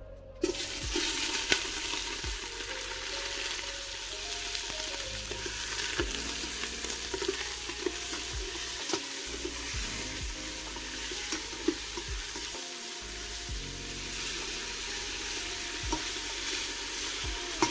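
Chunks of pork loin sizzling as they sear in hot olive oil in an enamelled pot. The sizzle starts about half a second in, when the meat goes into the oil, and runs steadily, with scattered clicks and scrapes from a metal skimmer stirring the pieces.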